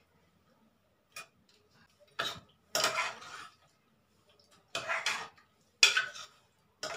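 A metal spoon scraping and clinking against the metal pressure-cooker pot as potatoes are put in. There is a faint click about a second in, then about five short scrapes, each under a second, with quiet gaps between them.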